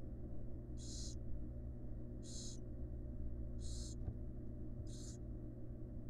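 Barn owl nestlings giving rasping hiss begging calls: four short hisses, a little over a second apart, over a steady low hum.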